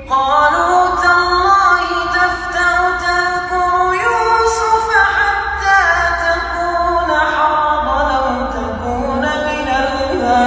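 A man's voice reciting the Quran in drawn-out, ornamented melodic phrases, holding notes and stepping between pitches in a sung style. A new phrase begins right at the start, with further phrases following about 4 and 7 seconds in.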